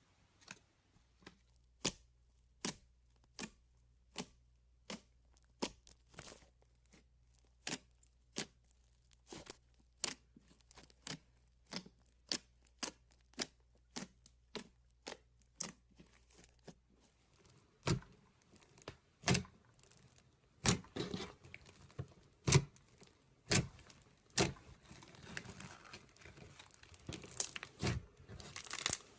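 Hands working slime, giving a run of sharp clicks and pops about two a second. About seventeen seconds in, the sound changes to louder, fuller pops with a crackling crinkle between them near the end.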